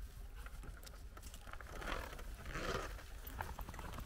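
A white Swiss Shepherd dog trotting through long grass close by: light rustling and soft pattering of paws, swelling briefly about halfway through, over a low steady hum.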